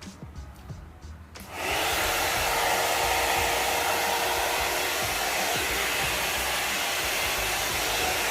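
One-step hair dryer and volumizer brush switching on about a second and a half in, then running with a steady rush of air and a faint whine. It is a noisy appliance, held in use drying and straightening the hair.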